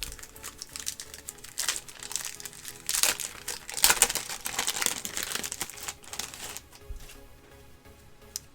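Wax-paper wrapper of a 1989 NBA Hoops basketball card pack crinkling and tearing as the pack is opened, with the loudest rips about three to four seconds in; it dies down after about six and a half seconds.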